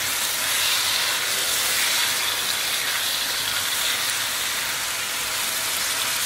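Yogurt-and-tandoori-masala-marinated chicken pieces sizzling steadily in hot oil in a nonstick frying pan, just added and being stirred.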